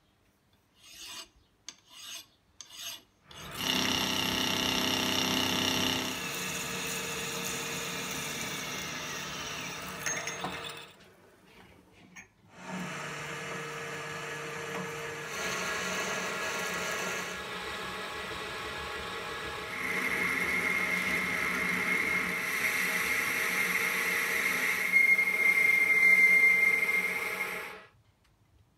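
A few strokes of a hand file on a metal part, then a metal lathe running, stopping briefly, and running again while a twist drill in the tailstock bores into the spinning part. A high, steady whine comes in from the drilling during the second run and is loudest near the end, before the lathe stops abruptly.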